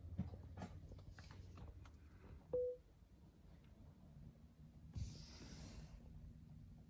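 A single short electronic beep about two and a half seconds in, as the car's charging handshake completes and charging begins. A few faint clicks come before it, and about five seconds in a hiss lasting about a second starts, with a faint low hum going on after it.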